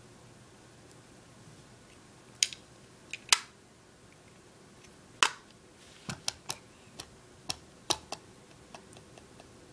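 A run of irregular, sharp little clicks and taps, about fifteen of them, starting a couple of seconds in, from small hard objects being handled.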